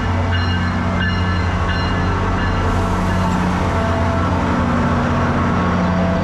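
SunRail commuter train running with a steady low drone, a bell ringing in even strokes about every 0.7 s that stops about two seconds in.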